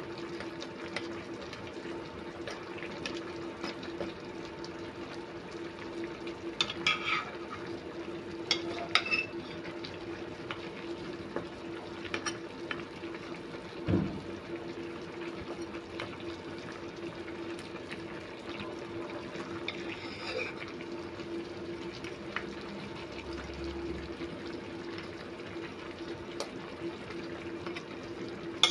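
Pork knuckles braising in a pot of dark liquid, bubbling at a steady simmer, with a steady low hum underneath. A few clinks of a metal ladle against the pot, and one dull thump about halfway through.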